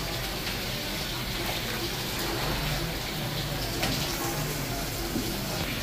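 Tap water running steadily into a steel sink, over a low steady hum.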